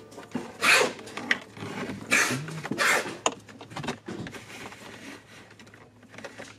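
Handling noise of a cable being pushed and dragged against plastic dashboard trim: several short scraping rustles, the loudest about a second and two seconds in.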